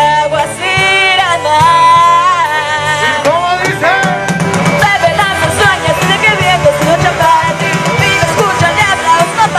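A live band playing a song with sung vocals over electric guitar, bass, keyboard and drum kit.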